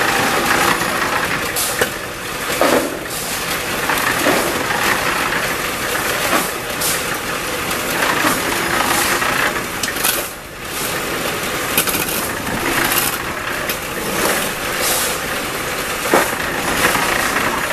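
Wet concrete being tipped out of a hoisted steel bucket and scraped onto the slab, with repeated scrapes and knocks. An engine runs steadily underneath.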